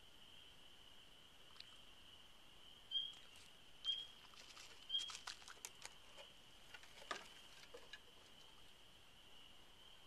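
Faint clicks and pattering from a raccoon at a dish of seed and on wooden deck boards, with three short louder sounds about a second apart partway in. A faint steady high-pitched whine runs underneath.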